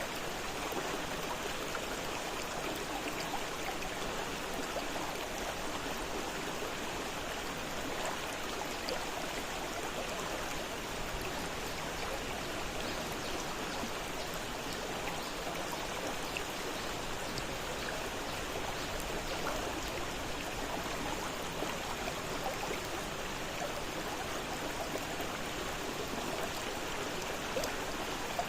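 Fast-flowing river water rushing and splashing steadily, with a constant even gurgle.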